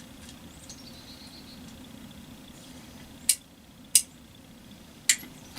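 Three sharp metallic clicks, spaced about a second apart, from handling a single-action .22 revolver, typical of turning its cylinder between shots.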